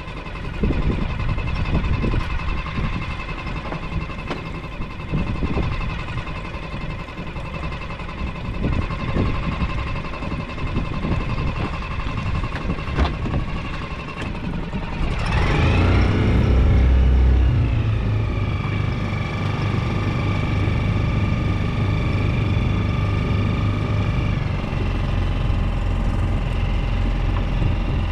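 Small boat engine running steadily, with scattered knocks of gear being handled. About halfway through it rises in pitch, then carries on with a stronger low rumble.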